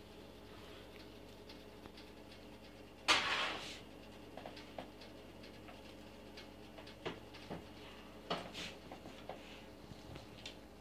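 Plastic shopping bags rustling and crinkling as a cat noses and pulls at them. One louder rustle comes about three seconds in, followed by scattered small crackles.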